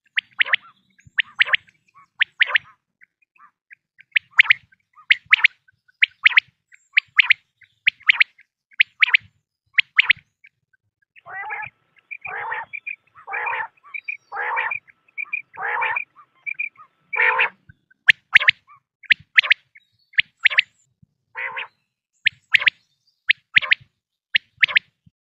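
Quail calling: a rapid series of short, sharp notes, with a stretch of longer, lower, rougher calls in the middle.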